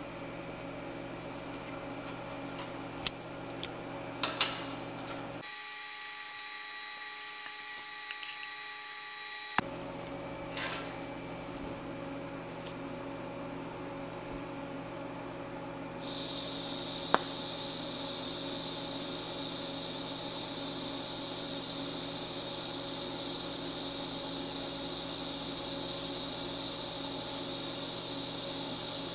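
A few sharp clicks and knocks as a locking C-clamp and a thin stainless bracket are handled on a metal welding table. A little past halfway, a TIG arc strikes on the stainless airplane exhaust hanger and runs with a steady, even hiss.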